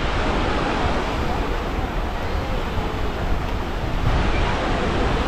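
Busy beach ambience: a steady wash of surf and wind, with many people's voices faintly in the background.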